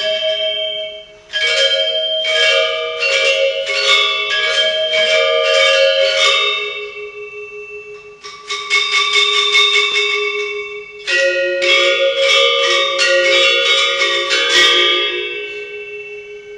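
Balinese gender wayang ensemble of bronze metallophones playing an instrumental passage. Struck notes come in quick runs, each ringing on long after the stroke. The playing drops away for a moment about a second in and again around the middle.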